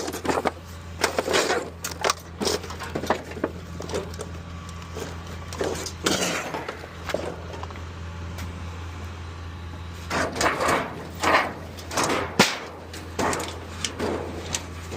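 Scrap steel being thrown off a trailer onto a scrap pile: a run of metal clanks and crashes, thinning out in the middle and picking up again after about ten seconds, over a steady low hum.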